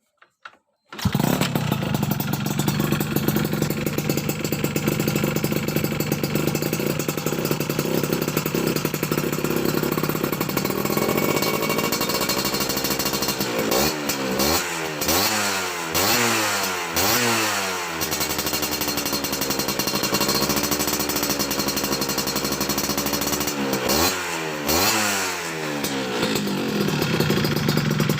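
Yamaha F1ZR's two-stroke single-cylinder engine running through an aftermarket racing exhaust: it comes in about a second in and idles, then is revved in a run of quick blips in the middle and a couple more near the end, settling back to idle between them.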